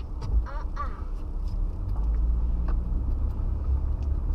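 Steady low rumble of a car driving, with a brief high squeaky sound about half a second in.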